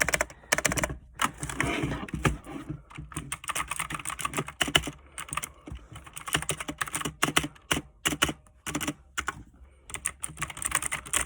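Keys being pressed rapidly on a mechanical keyboard with clicky blue switches: fast, irregular key clicks with a few brief pauses.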